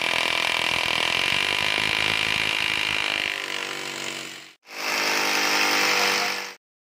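Electric hammer drill boring into a ceramic-tiled concrete floor, running steadily, then easing off about three seconds in. After a short break it drills again for about two seconds and cuts off suddenly.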